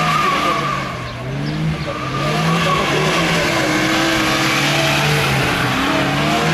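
Older rear-wheel-drive BMW 3 Series cars drifting on tarmac: the engine revs rise and fall over continuous tyre squeal and skidding.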